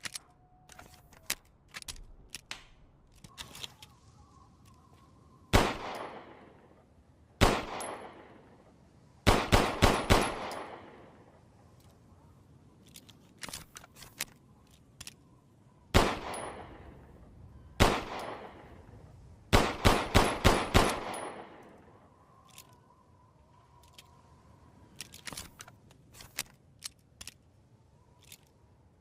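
Colt M1911 pistol firing: single shots and quick strings of four or five, each shot with a long echoing tail. Fainter clicks come between the volleys.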